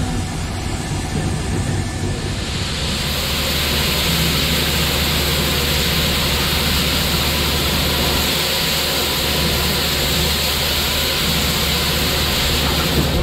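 Cab of Southern Railway 4501, a 2-8-2 Mikado steam locomotive: a loud, steady hiss swells in a couple of seconds in over a low steady hum, then cuts off sharply near the end.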